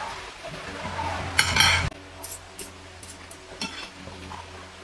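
Forks and spoons clinking and scraping on dinner plates while eating, with a quick run of loud clinks about a second and a half in, then scattered lighter taps.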